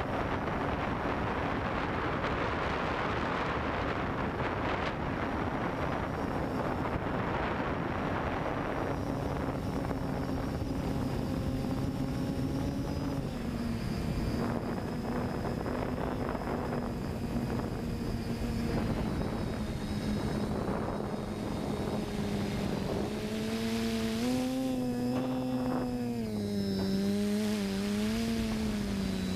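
Electric motors and propellers of an FPV drone, heard from its onboard camera, with wind rushing over the microphone. A steady whine with several tones takes over about nine seconds in, and its pitch rises and falls repeatedly in the last few seconds.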